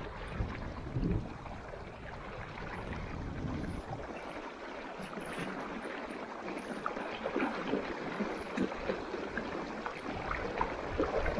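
River water running, with many small splashes and gurgles.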